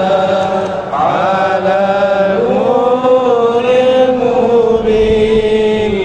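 Devotional chanting: a voice holding long notes that slowly rise and fall in pitch, with no break.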